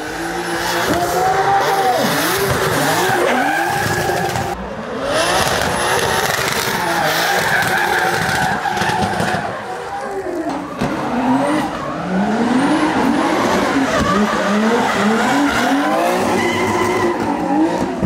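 Drift car engines revving hard, the pitch sweeping up and down over and over as the cars slide sideways, with tyres squealing and screeching. The sound changes abruptly about four and a half seconds in and again about ten seconds in.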